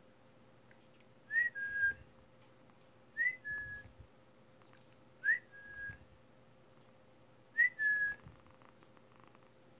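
A person whistling a soft two-note call four times, about every two seconds: each a short upward-sliding note followed by a held, slightly lower steady note.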